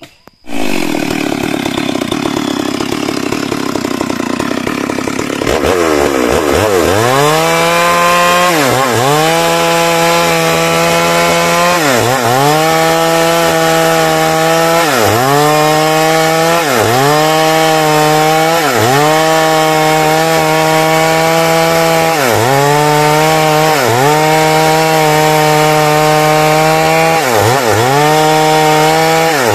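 Stihl MS 382 two-stroke chainsaw cutting into a teak trunk. It comes in suddenly and runs rough and lower for a few seconds, then goes to full throttle at about six seconds. From there its pitch repeatedly sags and recovers every couple of seconds as the chain bites into the wood under load.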